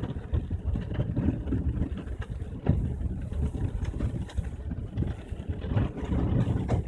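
Inside a Subaru's cabin while it drives over a rough, rocky dirt track: a low rumble from the tyres and engine, broken by frequent short knocks and rattles as the wheels hit stones and gravel.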